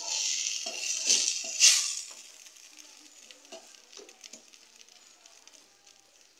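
Tripe (matumbo) sizzling in a stainless steel pot as a wooden spoon stirs it. The sizzle is loud for about the first two seconds, then drops away to a quiet background with scattered light knocks and scrapes of the spoon against the pot.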